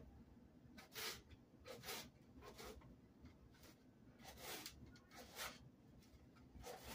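Faint knife strokes cutting on a plate: about seven short, soft scraping cuts at irregular intervals of roughly half a second to a second.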